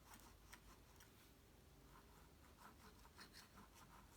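Near silence, with a few faint soft scratches and taps: glue being applied to the paper tabs of a card.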